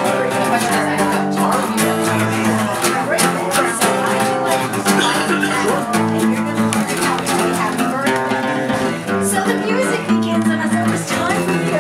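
Two acoustic guitars played together, chords changing every second or so.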